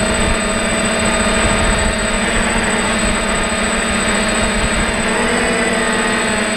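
DJI F550 hexacopter's six electric motors and propellers running steadily in flight, heard up close from a camera mounted on the frame: a constant hum with a thin high whine above it.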